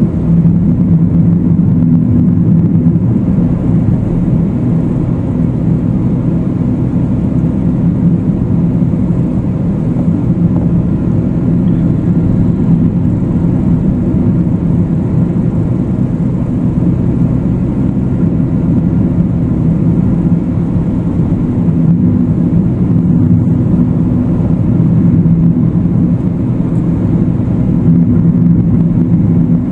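Steady low drone of a car driving at road speed, engine and tyre noise heard from inside the cabin.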